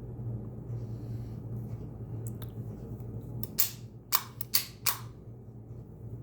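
Master Lock Pro Series combination padlock being handled: a quick run of five or six sharp clicks about midway through, over a steady low hum.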